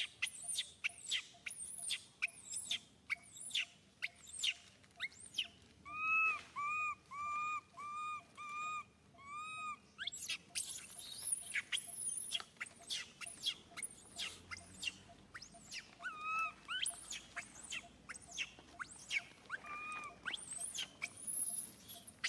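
Baby macaque crying: a rapid string of high-pitched squeals and chirps, with a run of about six arched, wavering cries in a row around the middle.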